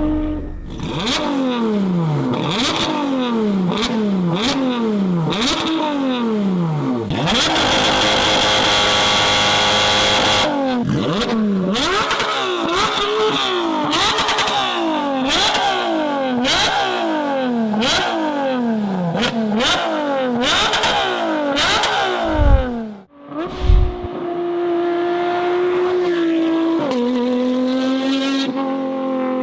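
Porsche 992 GT3 RS's naturally aspirated flat-six with a Valvetronic Designs exhaust, revved over and over, about one rev a second, each one rising quickly and falling away, with a few seconds of sustained high-rev running between them. About two-thirds in there is a brief dip and two loud low thumps, and then the engine holds steady at lower revs.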